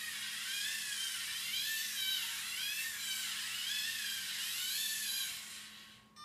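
Lego EV3 motors and gears whining as they drive a three-wheeled holonomic robot on Rotacaster omni-wheels. The pitch rises and falls in repeated swoops about once a second as the robot changes speed and direction. The whine dies away near the end as the robot stops.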